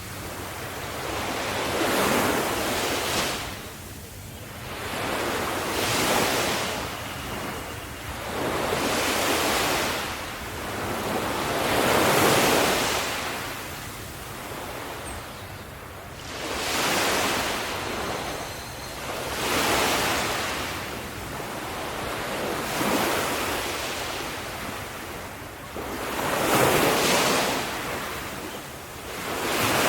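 Sea waves breaking on a shore, the surf swelling and washing back in repeated surges every two to three seconds.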